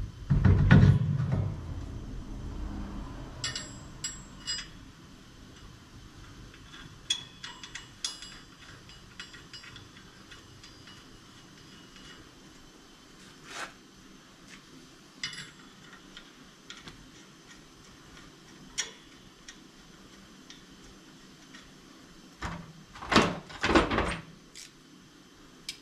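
Intermittent metal clanks, knocks and clicks of a motorcycle wheel and the bike-tire adapter being fitted on a wheel balancer. There is a heavy thump with a low rumble about a second in, and a cluster of loud knocks near the end.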